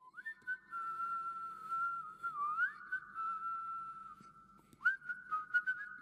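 Whistling a tune: held notes with short upward and downward slides between them. A few sharp clicks come in during the second half.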